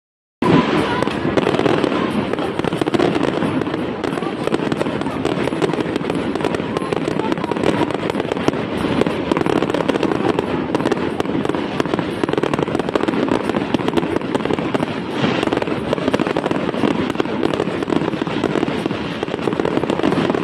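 Fireworks display going off continuously: a dense, steady stream of crackles and pops with no single large bang standing out.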